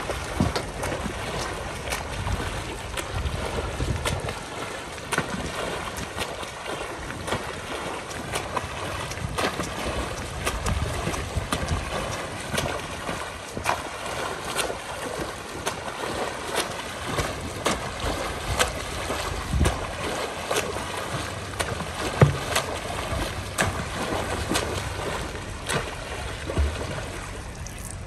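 A swimmer doing front crawl, arms and kicks splashing the water in a quick, irregular run of splashes over a steady hiss. The splashing eases off at the very end as the swimmer reaches the wall.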